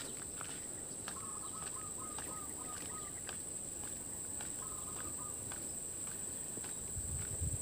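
Insects buzzing steadily at a high pitch, with a bird giving quick runs of repeated chirps twice. Scattered faint clicks, and light wind rumble on the microphone near the end.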